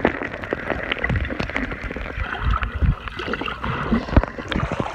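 Underwater sound of a child swimming in a pool, heard through a submerged camera: bubbling and churning water from his kicks and arm strokes, with irregular knocks and thumps.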